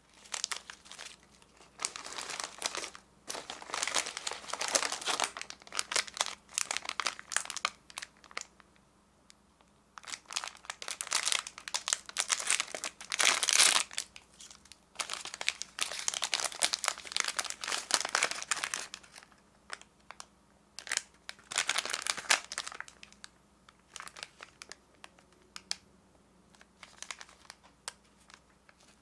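Plastic snack wrappers crinkling as they are handled, in irregular bursts with short pauses, dying down to occasional faint rustles near the end.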